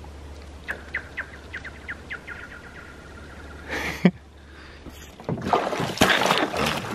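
A rock skipped across lake ice about an inch thick, giving a run of short zinging chirps that quicken as it slides away and trail into a ringing tone. Near four seconds there is a brief noisy burst ending in a sharp knock, and from about five seconds a boot crunches and splashes through the thin ice.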